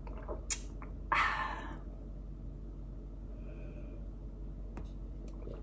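A woman's sharp breath about a second in, followed by faint small sounds as she drinks from a glass of water.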